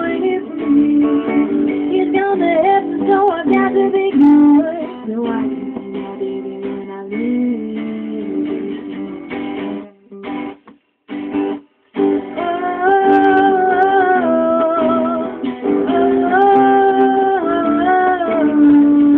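Live guitar music from an electric guitar and an acoustic guitar playing together, without words. The sound cuts out briefly about ten seconds in, then comes back with long held melody notes.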